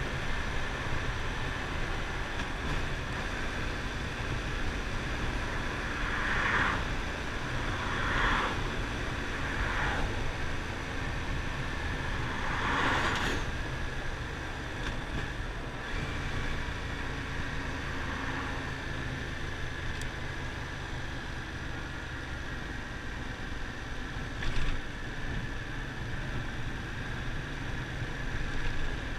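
Yamaha FZ-07's 689 cc parallel-twin engine running steadily while riding, with air rushing past the microphone. A few brief swells of noise come in the first half, and a short sharp knock sounds near the end.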